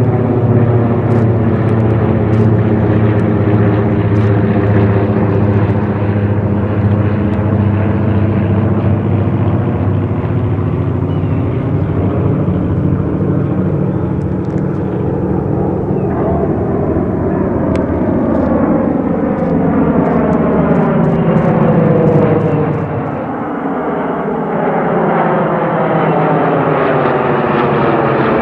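Twin radial piston engines and propellers of a Douglas C-47 transport droning overhead in a steady stack of tones that slowly shift in pitch as it passes. The sound dips for a moment about three-quarters of the way through, then swells again.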